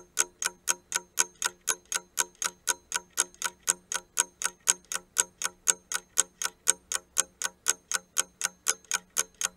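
Countdown-timer sound effect: a clock ticking evenly, about four ticks a second.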